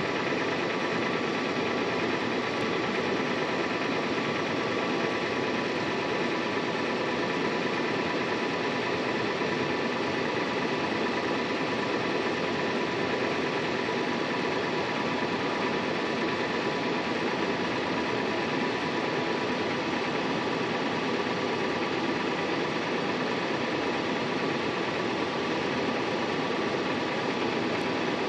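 2016 Toyota 4Runner's 4.0-litre V6 idling with a steady, loud knocking that sounds like a diesel; the owner does not know the cause.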